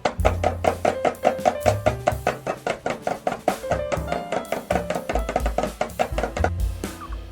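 Background music: a quick, steady run of plucked or struck notes over a bass line, with percussion.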